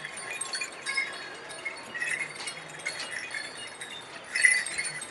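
Small metal bells on a riding elephant's harness jingling irregularly as it walks, loudest near the end.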